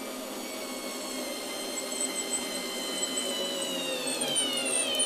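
Parkside PAS D5 4 V cordless screwdriver's motor and gearbox whining steadily while driving a wood screw into fir. The pitch drops over the last second as the screw tightens, then the motor cuts off suddenly as its overload protection trips.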